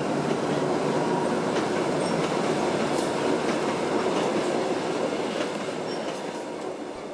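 Kuranda Scenic Railway train running along the track: a steady rumble of wheels on rails with a few faint clicks, fading out over the last couple of seconds.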